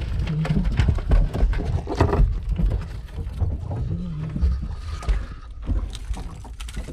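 Steady low rumble of a boat at sea, with scattered clicks and knocks from the deck.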